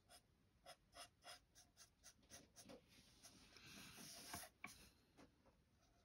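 Faint scratching of an alcohol marker's felt tip on paper while colouring: quick short strokes about three a second, then a longer steady stroke about halfway through and a few more short ones.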